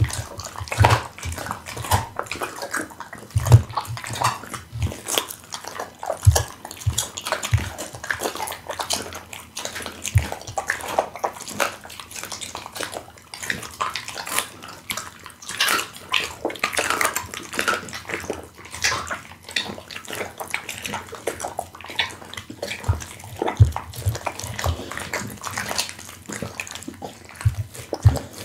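A pit bull chewing raw meat and bone close to the microphone: irregular wet smacking and crunching of bone, with occasional low thumps.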